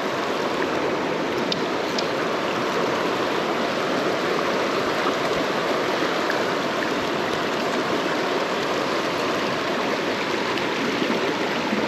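Shallow rocky mountain trout stream rushing steadily over stones and riffles.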